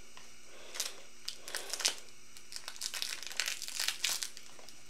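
Packaging crinkling and rustling in irregular bursts as it is handled and pulled off an item, starting about a second in.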